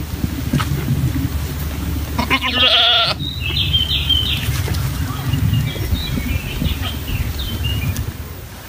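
A goat bleats once, a wavering call of just under a second about two and a half seconds in, over a steady low rumble.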